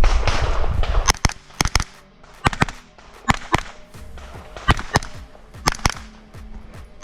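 Pistol-caliber carbine firing rapid shots on an IPSC stage, mostly in quick double-taps, about a dozen reports in all, each with a short ring-out. A loud rushing noise fills the first second before the shooting starts.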